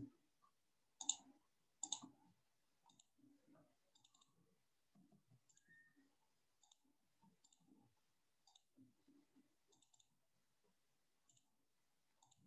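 Computer mouse clicking: three sharper clicks in the first two seconds, then faint, scattered clicks over near silence.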